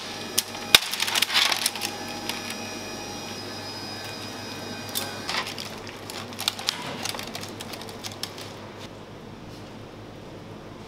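Kitchen clatter: a run of sharp clicks and knocks, dense at first, with another cluster a few seconds later, then thinning out near the end over a steady background hum.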